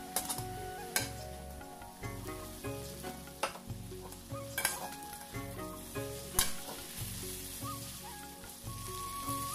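Leafy greens sizzling as they fry in a metal pan, stirred and scraped with a metal slotted spatula, with several sharp clanks of the spatula against the pan.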